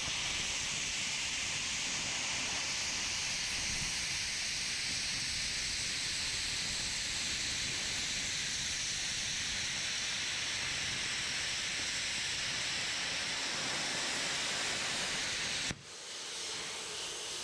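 Handheld plasma cutter cutting and beveling steel on a loader bucket edge: a steady, loud hiss of the arc and air jet, which drops to a softer hiss about a second and a half before the end.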